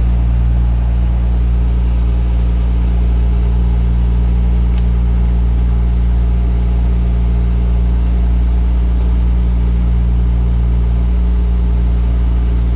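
Fishing boat's engine running steadily, a deep, even drone with a thin high tone above it.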